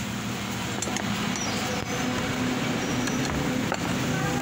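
A steady low mechanical hum, with a few faint clicks of steel deformed bar being handled as the grill parts are fitted together.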